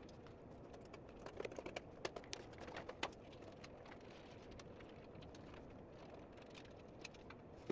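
Faint, scattered clicks and light taps of a rack-mounted network switch and its cables being handled as it is taken out of the rack, mostly in the first three seconds.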